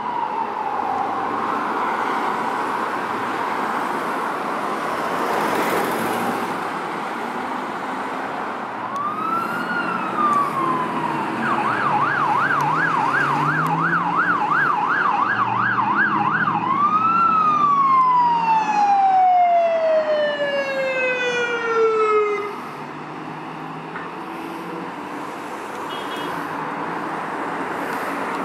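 Emergency vehicle siren sounding in traffic. It runs a slow wail, then a fast yelp for about five seconds, then rises once more and winds down in a long falling glide. After that, only car and road traffic noise.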